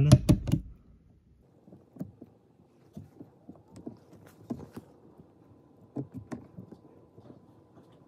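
Faint plastic clicks and light knocks as a new LG dishwasher drain pump motor is handled and fitted against its plastic pump housing.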